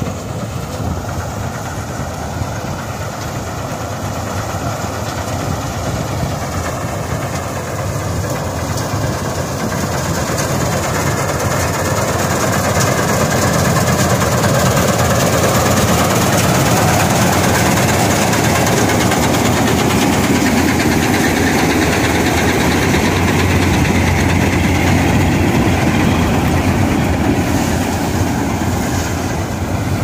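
Gurdial 651 self-propelled combine harvester running while harvesting soybean: a steady engine and machinery drone that grows louder about halfway through as the machine comes close, then eases slightly near the end.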